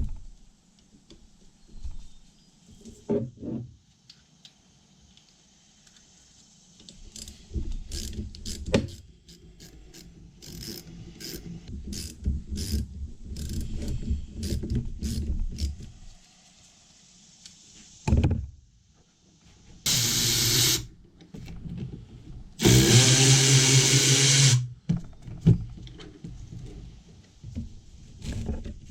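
Hand tools clicking and clattering on a Ford 5.0 starter being taken apart, then two short bursts of a power tool running, the second about two seconds long.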